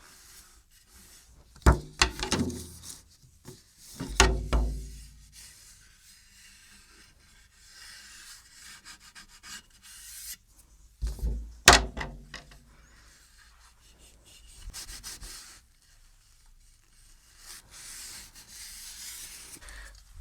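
A heavy solid-maple tom drum and its suspension-mount hardware being handled: a few loud knocks, one with the drum ringing low for a moment, between stretches of rubbing and scraping.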